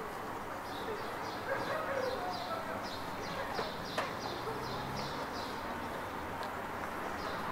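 Town-street background noise with a rapid series of short, high chirps repeating about two or three times a second for several seconds, then stopping.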